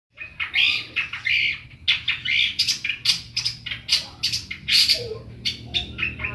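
Caged long-tailed shrike singing a fast string of short, harsh notes, about three or four a second. A faint low hum runs underneath.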